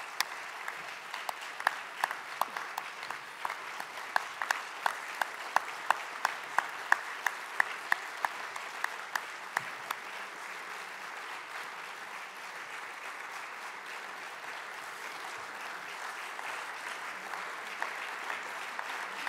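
Audience applauding steadily, with sharp single claps close by standing out at about two a second in the first half before blending into the general applause.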